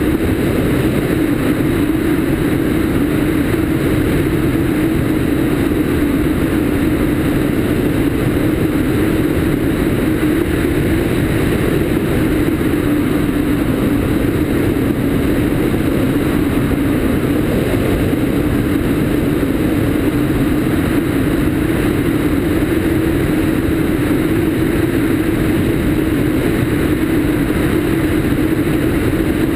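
Cessna 152's four-cylinder Lycoming engine and propeller running steadily in cruise flight, heard through a camera mounted outside under the wing, with a constant drone and airflow rushing past the microphone.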